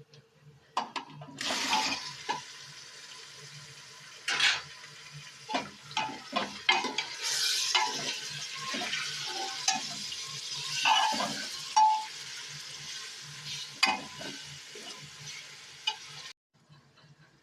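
Food sizzling in a frying pan while a metal spoon stirs it, with repeated clicks and knocks of the spoon against the pan. The sizzle cuts off suddenly near the end.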